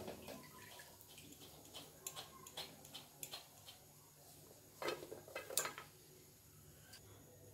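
Wire skimmer clinking and scraping against an iron kadai as fried matri are lifted out of the oil and tipped onto a paper towel. Scattered clinks, the loudest two about five seconds in.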